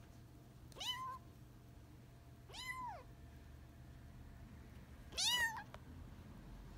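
Silver Bengal kitten meowing three times, short high mews that rise and fall in pitch, spaced about two seconds apart; the third is the loudest.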